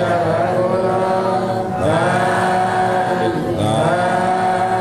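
Buddhist devotional chanting by a man's voice, in long drawn-out phrases. Each phrase glides up into a held note, and a new phrase begins about every two seconds.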